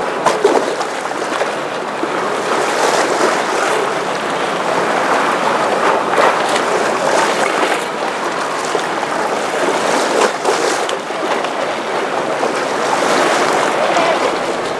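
Choppy canal water lapping and splashing against a stone quay edge, a steady wash of water noise with repeated brief splashes.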